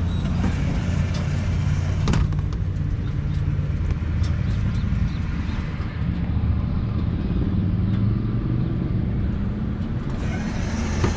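Harley-Davidson Road King's V-twin engine idling steadily while the motorcycle stands still.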